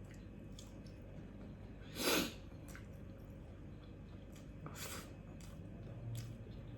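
Close-up eating sounds: soft chewing and small mouth clicks, with one short, loud, sharp noisy breath about two seconds in and a weaker one near five seconds.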